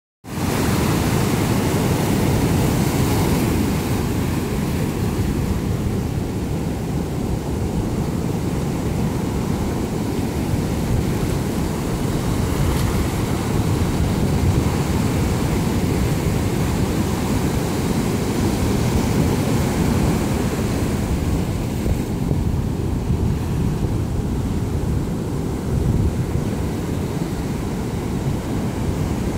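Sea surf washing in and foaming around beach rocks and over sand, a steady rushing wash. Under it runs a heavy low rumble of wind buffeting the microphone.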